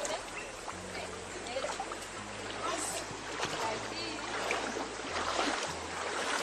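River water running and splashing: a steady rush of water with small splashes throughout.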